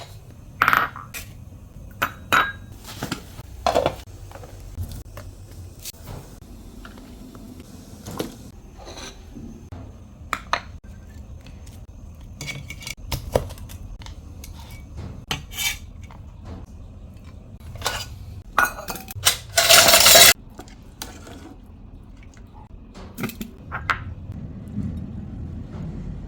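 Kitchen dishes and metal utensils clinking and knocking at irregular intervals during cooking, with one louder, noisier clatter lasting under a second about 20 seconds in.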